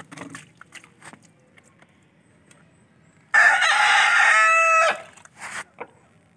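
A rooster crows once, about three seconds in. The crow opens harsh and ends on a held, steady note, and lasts about a second and a half.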